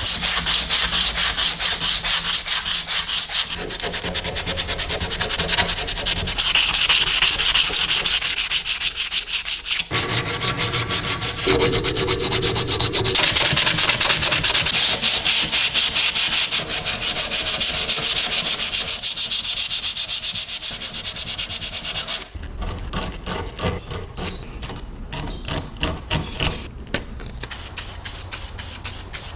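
Rusty metal of a stapler being scrubbed with an abrasive: rapid, continuous rubbing strokes. A little after two-thirds of the way through, the strokes turn lighter and more spaced out.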